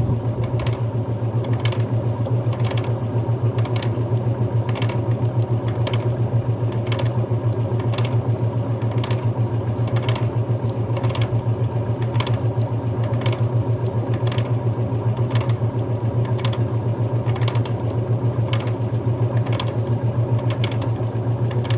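Brastemp Luxo Plus top-loading washing machine in its spin cycle: a steady motor hum with a short regular click about every two-thirds of a second. The owner puts the noise down to the missing tub rubber, something loose inside.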